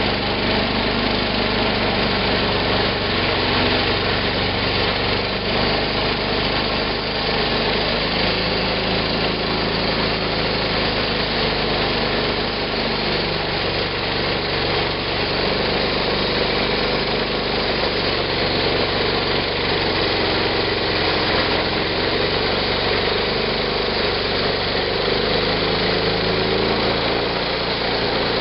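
15-horsepower engine of a Wood-Mizer LT15 manual band sawmill, running steadily, its pitch dipping slightly now and then.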